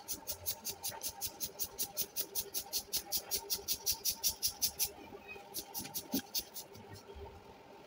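Air pump inflating an inflatable boat: rapid, even pumping strokes, each a short hiss of air, several a second, pausing briefly about five seconds in and stopping near the end.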